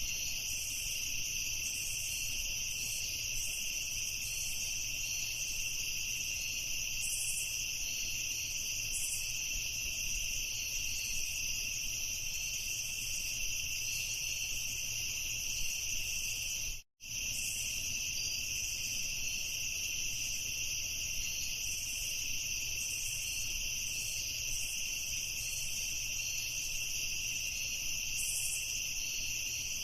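A dense chorus of crickets trilling steadily in high-pitched, continuous tones, which cuts out completely for an instant about seventeen seconds in.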